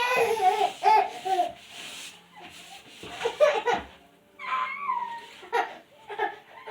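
High-pitched whining, wailing cries that slide up and down in pitch, loudest at the start and again about halfway through: someone small throwing a fit.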